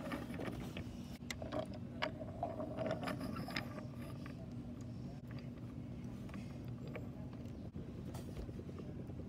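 Faint outdoor background rumble with a steady low hum, and scattered light clicks and taps.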